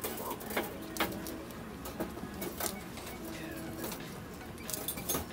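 Scattered sharp clicks and crinkles of surgical instruments and plastic packaging being handled.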